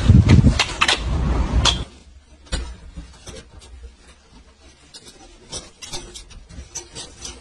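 A loud rumbling noise for about two seconds, then quieter scattered small clicks and rubs of wire being untwisted from a vehicle's door window frame.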